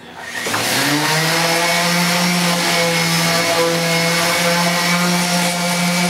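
DeWalt 5-inch random orbital sander with a 120-grit disc and dust collector running on a wooden tabletop. Its motor speeds up over about the first second, then runs with a steady hum and whine.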